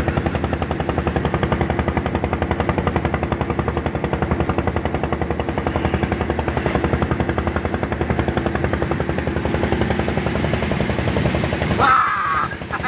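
Small fishing boat's inboard engine running steadily underway, a rapid, even pulse of firing strokes. A brief louder sound breaks in near the end.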